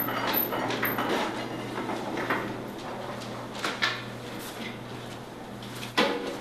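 Trash bin being handled: scattered light knocks and clatter, with one sharp knock near the end.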